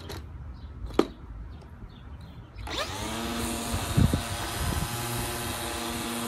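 A sharp click about a second in, then a lawn mower's motor starts with a short rising whine about halfway through and runs steadily.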